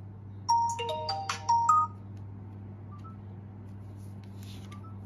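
OUKITEL rugged smartphone's timer alarm tone: a quick run of bright, bell-like notes for about a second and a half, which then stops as the alert is dismissed. A low steady hum and a few faint taps follow.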